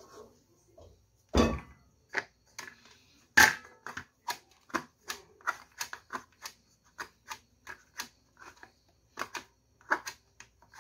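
Hands pressing and patting pastry dough into an aluminium removable-bottom tart tin: a run of quick soft taps, about three a second, with two louder knocks in the first few seconds.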